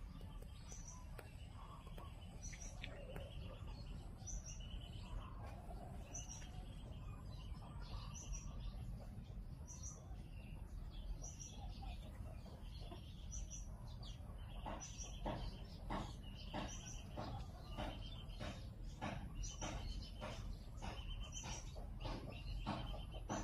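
A bird calling over and over: a short high note and then a lower note, repeating about every one and a half to two seconds, a little faster later on. A steady low rumble sits underneath, and in the second half there are scattered sharp clicks.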